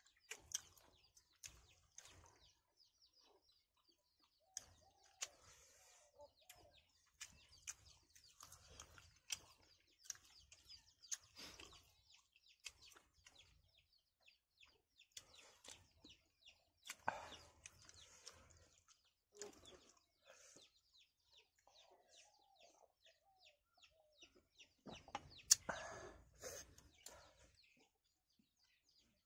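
Faint eating sounds from people eating rice and curry by hand: chewing, lip smacks and small clicks of fingers and food against metal plates, a little louder near the end. Chickens cluck faintly now and then in the background.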